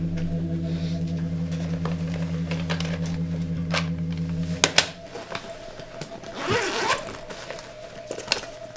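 A low, steady music drone that cuts off about halfway, followed by two sharp clicks and a short rasping zip, like a zipper being pulled on a jacket or bag.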